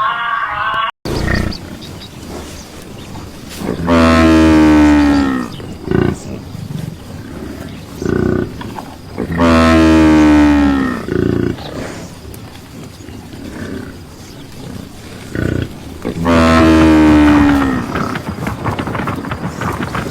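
A large animal calling: three long, deep calls a few seconds apart, each sliding down in pitch, with shorter grunts between them. A brief bit of music cuts off about a second in.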